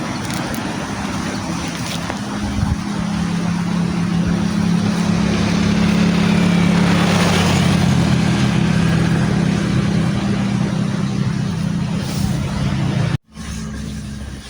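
A motor vehicle's engine running at a steady pitch, growing louder over a few seconds and then holding, until the sound cuts off abruptly near the end.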